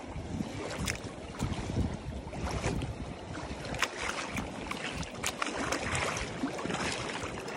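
Wind buffeting the microphone over shallow sea water washing at the shoreline, with scattered sharp clicks.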